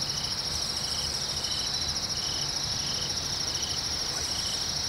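Crickets trilling steadily in a high, fast-pulsing drone, with a lower short note repeating about every two-thirds of a second from another caller.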